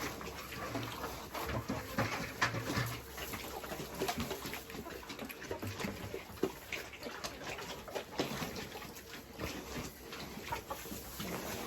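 Pigs grunting, in short low-pitched bursts mostly in the first few seconds, mixed with scattered knocks and rustles.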